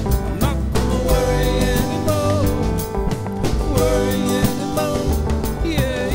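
Background music: a country-style song with a sung melody over a band with drums.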